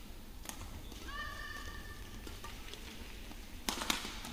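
Badminton rally: a racket strike on the shuttlecock about half a second in, a brief high squeak about a second in, and a quick run of sharp cracks of racket on shuttle near the end.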